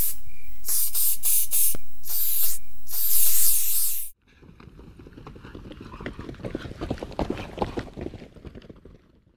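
Loud bursts of hiss, several in a row with short gaps, cutting off suddenly about four seconds in. Then fainter irregular crackling and clicking that builds and fades away near the end.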